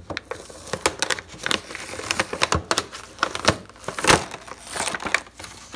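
Toy packaging being pried and torn open by hand: the plastic blister pack and cardboard backing give irregular crackles and sharp clicks, with a few short rips of tearing cardboard.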